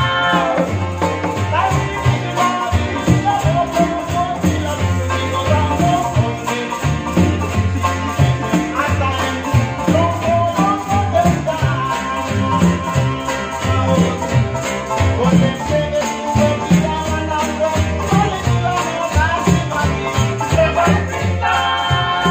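Vanuatu-style string band music: strummed acoustic guitars over the steady pulse of a one-string bush bass, with a group of men singing. Near the end the voices swell into a held chord.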